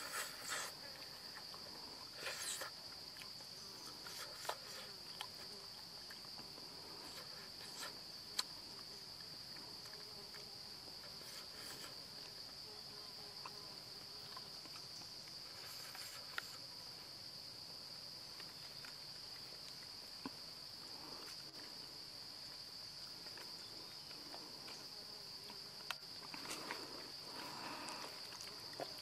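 Forest insects keeping up one steady high-pitched drone, with a few faint short clicks and rustles here and there.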